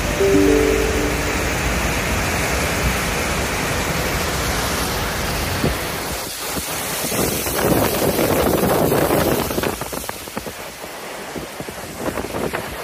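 Muddy flash floodwater rushing past with a steady, loud noise. From about seven seconds in, wind buffets the microphone, and the noise drops back near the end.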